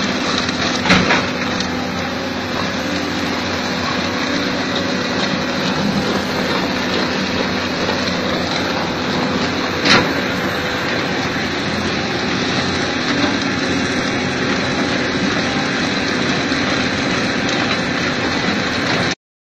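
Excavator-mounted rotary drum cutter grinding into rock: a steady, dense mechanical noise from the spinning pick-studded head and the machine driving it, with a steady hum under it. Two sharp knocks stand out, about a second in and about ten seconds in, and the sound stops abruptly near the end.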